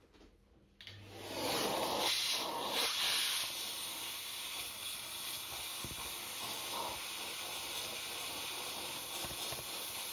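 Vacuum cleaner nozzle pressed against an AirPod's speaker mesh, sucking out window-cleaner liquid with a steady hiss. The hiss starts suddenly about a second in and is loudest over the next few seconds.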